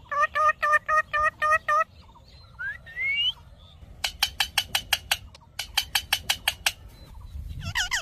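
Rose-ringed parakeets calling: a quick run of about eight evenly repeated calls, a couple of rising squawks, then two fast runs of short sharp notes near the middle.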